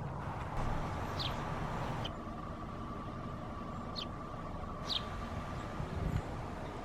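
Steady road and engine rumble of a moving vehicle, with a faint steady hum and four short high chirps over it.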